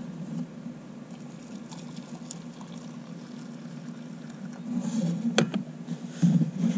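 Just-boiled water poured from a stainless steel kettle into a mug, then the kettle set down with a sharp clunk about five seconds in, over a steady low hum.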